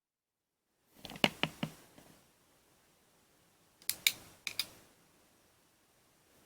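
Mechanism of a toy cap gun revolver being handled between shots: two quick groups of sharp clicks, about a second in and again about four seconds in.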